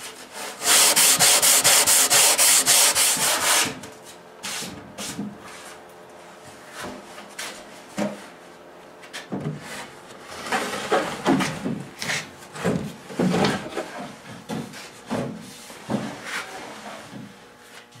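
Hand-sanding a new wood repair strip on a drawer side: about three seconds of rapid back-and-forth strokes. Then quieter wooden knocks and scraping as the drawer is lifted and slid in and out of the cabinet on its rebuilt wooden runners.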